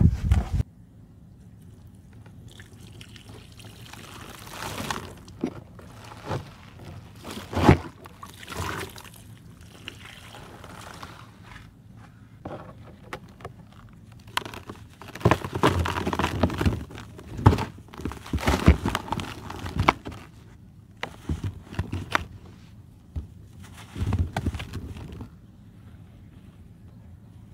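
Dry soil crumbling and sifting through fingers right at the start, then water pouring and splashing over broken red brick chunks in a bucket. The wet chunks knock together and crumble in the hands, with sharp knocks scattered through, busiest in the middle.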